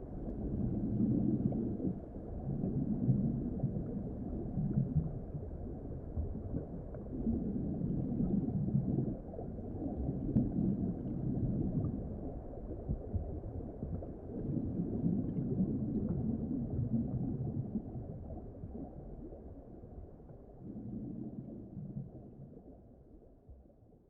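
Low underwater rumble that swells and eases every few seconds, then fades out near the end.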